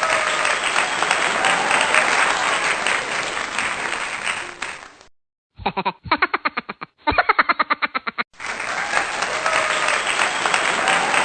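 Applause with crowd noise. It breaks off about five seconds in for a short silence and then about two and a half seconds of a rapid pulsing pitched sound. The applause returns near the end.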